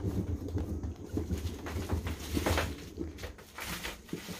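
Cat exercise wheel turning with a low, uneven rumble under a cat's paws, with soft irregular pats and knocks and a couple of brief swishes.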